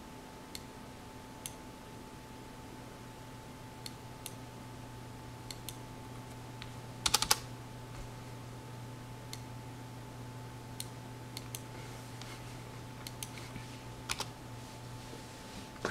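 Computer keyboard being typed on in scattered keystrokes, with a quick run of keys about seven seconds in and another short run near the end, over a steady low electrical hum.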